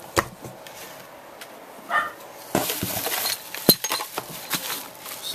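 Packaging and paintball marker parts being handled: scattered clicks, a brief squeak about two seconds in, then plastic wrapping rustling with sharp clinks, the loudest a little past the middle.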